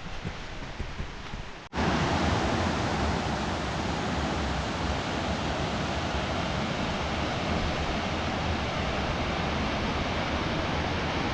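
Waterfall rushing steadily. It cuts in abruptly about two seconds in, after a quieter stretch.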